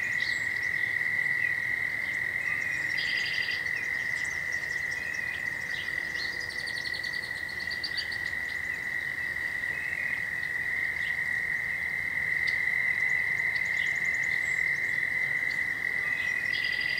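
A chorus of many tree frogs calling at once, blending into one steady, unbroken high trill. Shorter, higher trills break in over it a few times.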